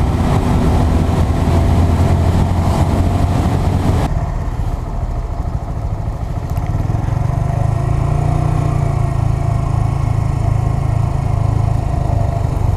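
2017 Honda Grom's 125 cc single-cylinder engine running while riding, with a loud rush of air over the microphone. About four seconds in, the rush drops away abruptly, leaving the engine's steadier low note.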